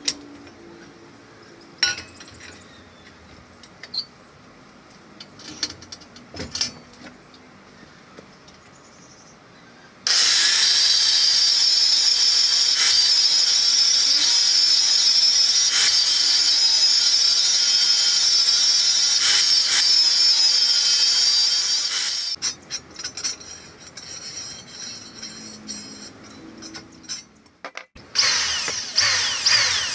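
Electric angle grinder cutting through a steel bar held in a bench vise: a steady, loud high whine that starts suddenly about a third of the way in and runs for about twelve seconds. Before and after the cut, scattered metallic clicks and knocks from handling the bar in the vise.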